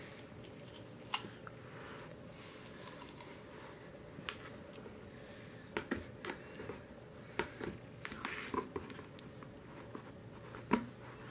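A stiff cardboard album box and its paper insert handled by hand as it is opened: scattered light taps, clicks and scrapes of card, busier in the second half.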